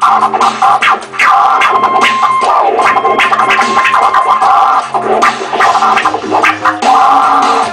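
Turntable scratching over a looped hip-hop beat: a sample is scratched back and forth on a Serato Scratch Live control vinyl and chopped into many quick cuts with the mixer.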